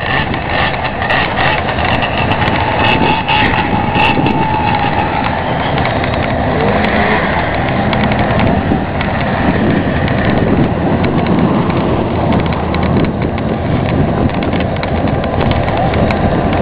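Vehicle engines running steadily and loudly, with the pitch rising and falling as they rev.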